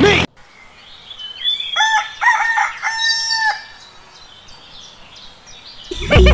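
A rooster crowing once, a few short notes ending in a longer held note. Music starts just before the end.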